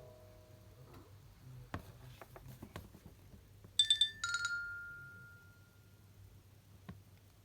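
Nokia Lumia 520 message tone: a short, bright two-note chime, the second note lower and ringing out for about two seconds. Before it, the last tone of the previous sound fades out, followed by a few faint clicks; one more click comes near the end.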